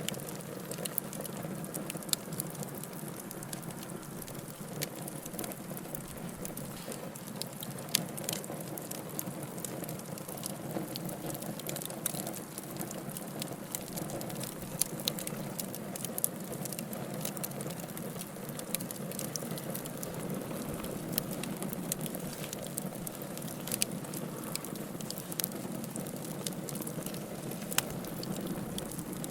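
Wood campfire crackling and popping: many sharp, irregular pops and snaps over a steady low hiss of burning.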